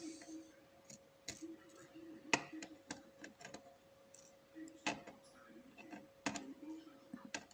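Irregular sharp metallic clicks and taps of small tools and lock parts being handled while an Abus 7240 brass padlock is taken apart to remove its pins, with softer handling noise and a faint steady hum underneath.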